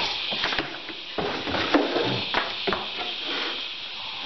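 A 160-pound 12-volt battery being set down and shifted on wooden pallet boards: a few knocks and scrapes, the loudest nearly two seconds in, over a steady background hiss.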